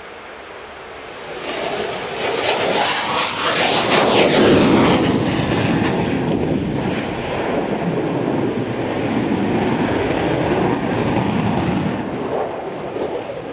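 Aircraft engine passing close by on the airfield. It swells about a second and a half in, is loudest around four to five seconds in as its pitch falls, then stays loud before easing off near the end.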